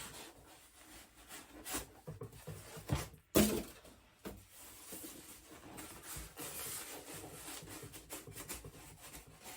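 Styrofoam packing end pieces being worked and wiggled off a boxed machine: irregular foam rubbing and packaging rustle, with a few clicks and one sharp knock about three seconds in.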